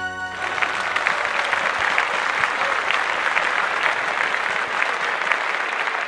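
The song's last held chord stops just after the start, and an audience breaks into steady applause, many hands clapping.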